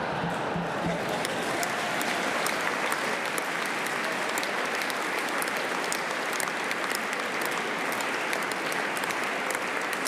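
Sustained applause from a full parliamentary chamber, many people clapping at a steady level.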